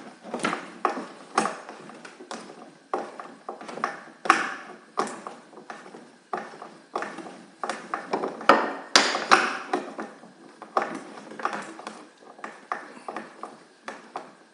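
Irregular light clicks and taps, a few a second, of metal screws and wooden hive parts being handled during assembly, with a few louder clicks a little past the middle.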